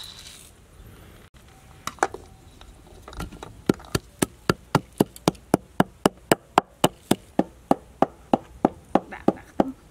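Wooden pestle pounding peppercorns in a deep wooden mortar: a short rattling hiss as the peppercorns are poured in at the start, a few single knocks, then from about a third of the way in a steady run of sharp wooden knocks, about four a second.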